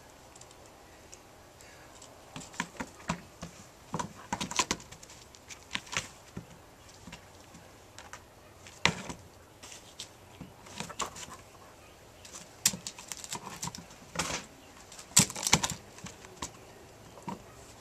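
A kitten scrabbling and pouncing while playing with a string: irregular taps, scuffs and scratches in quick clusters, starting about two seconds in, the loudest flurry near the end.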